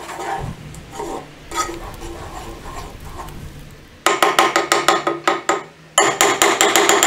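A metal spoon stirring flour into melted butter and oil in a small pot, then, about four seconds in, a rapid run of sharp taps of the spoon against the pot, about five a second, knocking the flour off the spoon, with a short break near the end.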